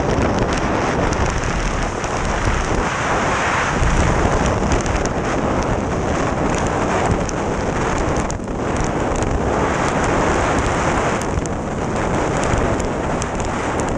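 Freefall airflow blasting the microphone of a hand-held action camera during a tandem skydive: a loud, steady rush of wind noise.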